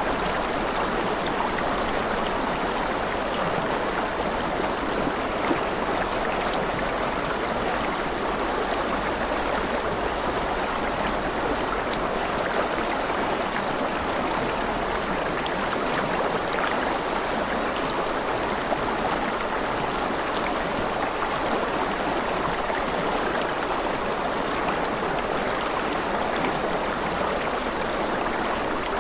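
Rushing river water flowing over rocks, a steady, unbroken rush with fine splashing detail.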